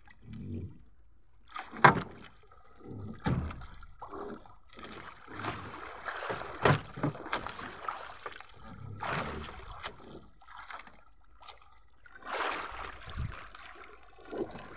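Water sloshing and slapping around a small fishing boat drifting with its engine off, with irregular knocks against the hull, the sharpest about two seconds in.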